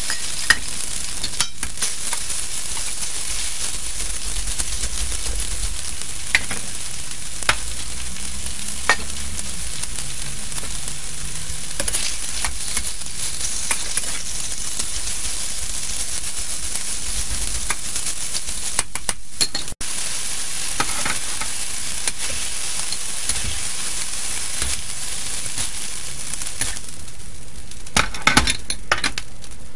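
Chicken strips and minced garlic sizzling in hot oil in a carbon-steel wok, stir-fried with a spatula that clicks and scrapes against the wok now and then. Near the end the sizzling thins and a quick cluster of clicks follows.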